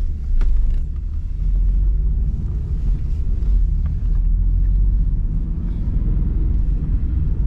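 A taxi being driven along a road, heard from inside the cabin: a steady low rumble of engine and road noise.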